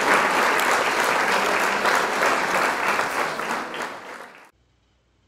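Audience applauding, a dense clatter of many hands that fades away from about three seconds in and ends just before the close.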